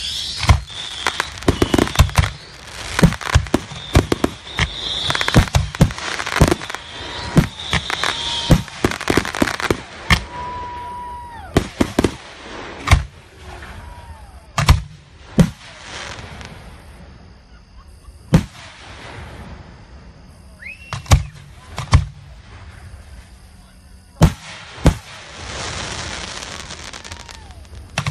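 Aerial fireworks going off: a rapid series of shell bursts for about the first ten seconds, then sparser single bangs. Crackling runs between them, and now and then a short whistle falls in pitch.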